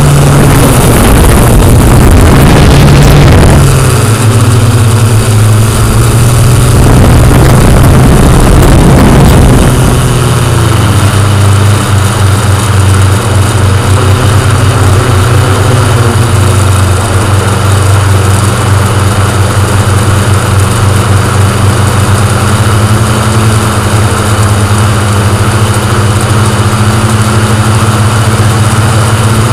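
Multirotor drone's motors and propellers humming steadily, picked up close by the drone's own microphone. It is rougher with a rushing of air for about the first ten seconds, then settles into a steadier, even hum.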